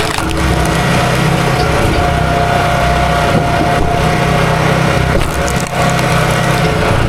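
Small gasoline engine running steadily under load while wood cracks and splinters, with a brief dip in level near the end.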